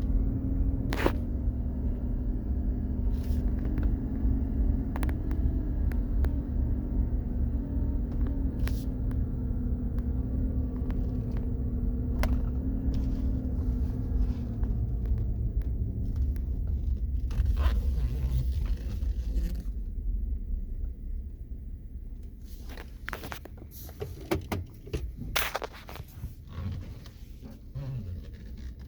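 2016 Chevy Silverado running with a steady whine from its undercarriage over a low rumble. The whine and rumble fade out about halfway through, leaving scattered clicks and knocks.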